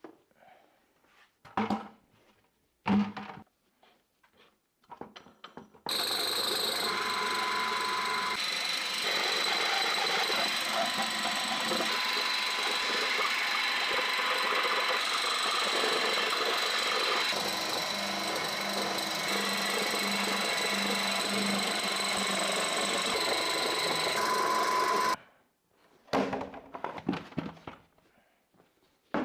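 A small electric motor running steadily with a fixed whine for about twenty seconds, starting and stopping abruptly. Rustling and knocks from handling come before and after it.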